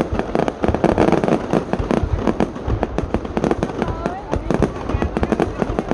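Aerial fireworks bursting in rapid, irregular succession: dense cracks and pops over deep booms, with no pause.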